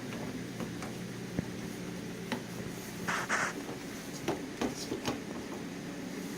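Scattered small clicks and taps of a car door handle's parts being worked loose by hand, with a brief scrape about three seconds in.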